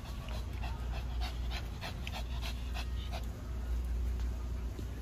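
A Shih Tzu breathing in quick, short breaths, about four or five a second, which stop after about three seconds. A steady low hum runs underneath.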